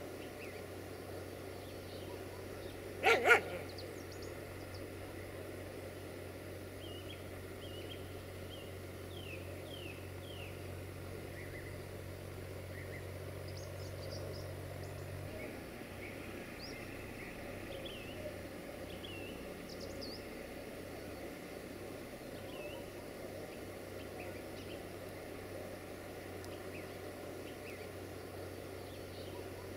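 A dog barks twice in quick succession about three seconds in, over steady rural background noise with small birds chirping. A low steady hum cuts off about halfway through.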